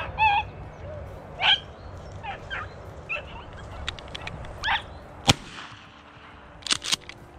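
Beagles baying on and off as they run a rabbit, then one sharp, loud shot from a .410 shotgun about five seconds in.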